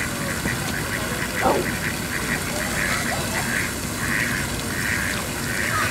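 A duck quacking in a quick series of short calls that slows to fuller, spaced-out quacks in the second half. A single sound slides downward in pitch about a second and a half in.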